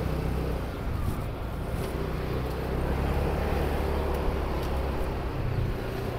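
A vehicle running steadily along the road: a low, even engine and tyre hum.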